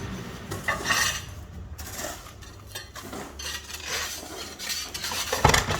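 Irregular scraping and clinking of metal work tools, with one sharp knock about five and a half seconds in.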